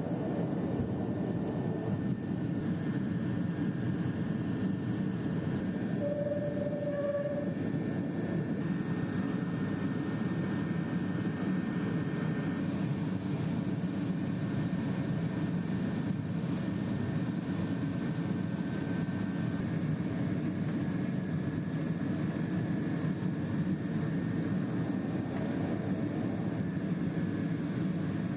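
Steady cabin drone of a Pilatus PC-12's single turboprop engine and propeller, heard from inside the passenger cabin, with a short faint tone about six seconds in.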